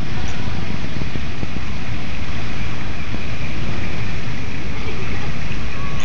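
Loud steady rushing noise with uneven buffeting in the low end, typical of wind blowing across the camera microphone.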